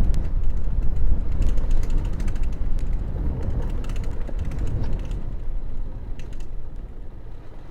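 Motorcycle riding over a rough dirt track: a steady low rumble with rattling and clicking from the bike's loose parts, getting quieter near the end.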